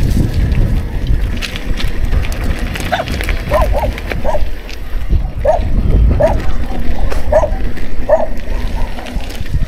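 Mountain bike rolling down a rough dirt and gravel track, with a loud steady low rumble and rattle from the tyres and bike. From about three seconds in, a dog barks repeatedly, about nine short barks.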